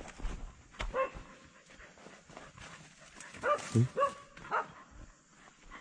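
A dog barking: one short bark about a second in, then three quick barks near the end. Brush and leaves rustle at the start.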